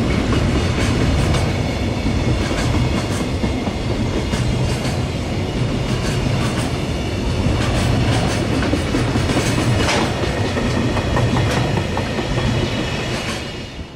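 Freight train wagons rolling past at close range, their wheels clicking and clattering steadily over the rail joints. The sound cuts off abruptly at the very end.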